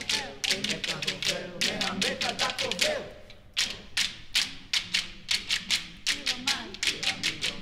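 A choir making many fast, irregular percussive clicks and taps, with a few voices sliding up and down in pitch through the first three seconds.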